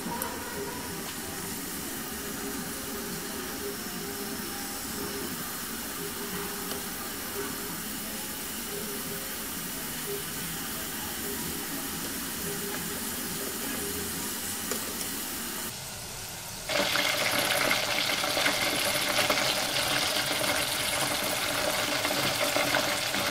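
Wontons deep-frying in a pot of oil: a steady sizzle and bubbling. About 16 seconds in it turns abruptly louder and brighter.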